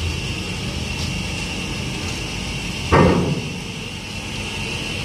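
Ro-ro cargo ship's stern ramp door being lowered: a steady mechanical hum with a constant high whine, broken by one loud clank about three seconds in.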